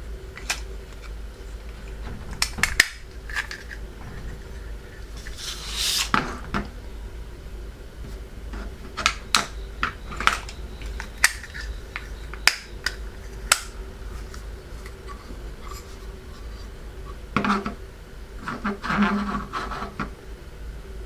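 Hard plastic parts of a small transforming capsule toy clicking and snapping as its legs and head are folded and turned, with a dozen or so sharp separate clicks and two brief scraping, rubbing stretches about six seconds in and near the end. A steady low hum lies underneath.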